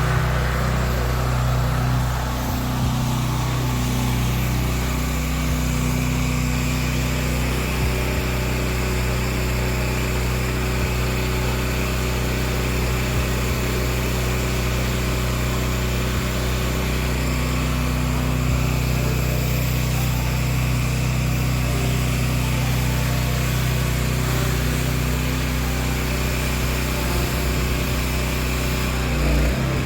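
Pressure washer's engine running steadily at working speed.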